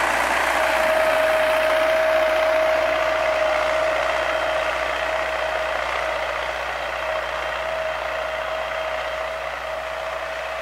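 MTZ-80 tractor pulling a mounted plough through manured soil: a steady high whine over mechanical running noise, growing gradually fainter as the tractor moves away.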